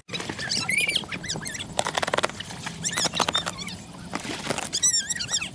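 Small birds chirping with quick warbling calls throughout, with two short spells of crinkling and clicking from plastic food packaging being handled, about two and three seconds in.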